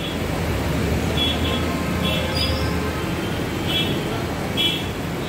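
Steady low rumble of background street traffic, broken by short high-pitched chirps five times.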